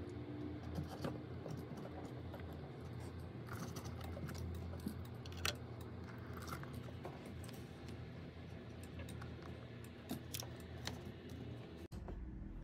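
Steady low electrical hum with scattered light clicks and taps, as the phone is handled on the bench; near the end the sound changes abruptly at an edit.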